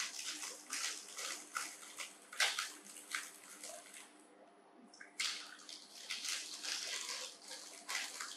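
Plastic snack packet crinkling in quick crackly bursts as it is handled, with a pause of about a second near the middle.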